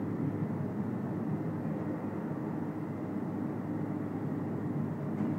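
Olive mill crusher running steadily, its large rollers turning through the pan and grinding olives into a thick paste; an even, unbroken machine noise.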